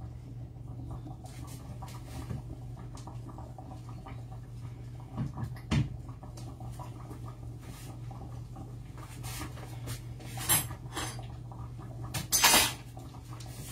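Kitchen clatter: a few scattered knocks and clinks, with a longer, louder clatter about twelve seconds in, over a steady low hum.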